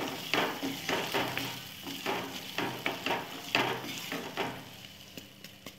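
Wooden spatula stirring and scraping cooked black chickpeas around a pan in quick repeated strokes, two to three a second. The strokes thin out and fade near the end.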